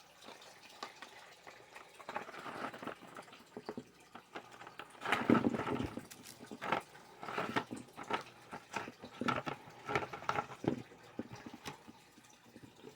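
Plastic packaging and small washi tape rolls being handled, with irregular short rustles, crinkles and light clicks, loudest about five seconds in.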